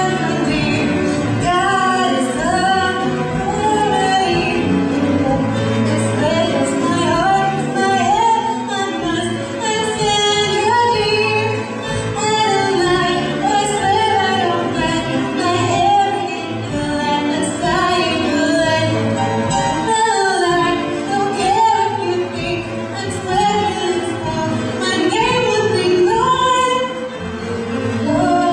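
Live musical number from a stage show: voices singing, a woman's voice among them, over band accompaniment.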